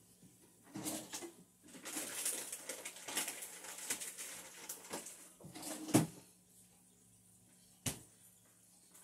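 Irregular rustling and light clatter for about five seconds, then a sharp knock about six seconds in and another near the end, over a faint steady hum.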